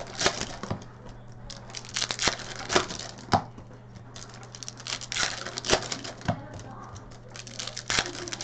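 Hockey card pack wrappers crinkling and tearing as packs are ripped open, in a run of sharp, irregular crackles and rustles, over a steady low hum.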